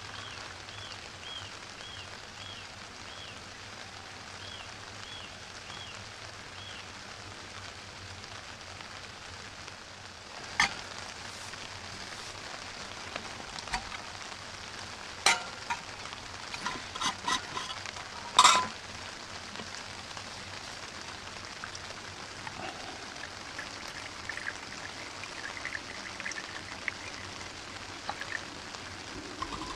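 Sharp metallic clinks and knocks as a small alcohol burner and its parts are set down on a steel camp grill, several in quick succession and the loudest about two thirds of the way in. Under it runs a steady hiss of rain on the tarp, and a bird gives a quick series of short chirps in the first several seconds.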